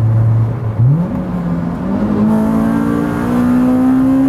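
Supercharged Honda S2000's four-cylinder engine heard from inside the cabin. It runs at a steady note, then the revs jump sharply about a second in as it is shifted down, step up again about two seconds in, and climb steadily under acceleration.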